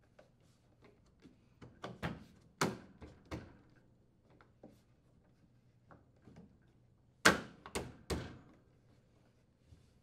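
Frigidaire refrigerator's lower grille being pressed and snapped into place along the base: a series of knocks and clicks, with the loudest group about seven seconds in.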